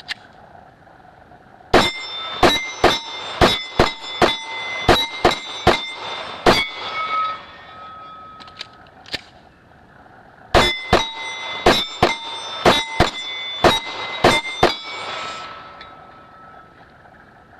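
Glock 30 .45 ACP subcompact pistol fired in two rapid strings of about ten shots each, a pause of a few seconds between them, with steel target plates ringing from the hits after the shots.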